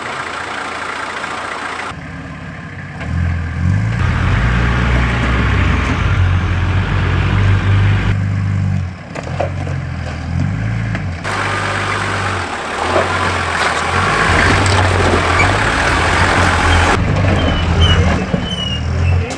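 Nissan Patrol 4x4 engine running under load at crawling speed as it climbs a rocky step, a deep rumble that rises and falls with throttle. Abrupt changes every few seconds.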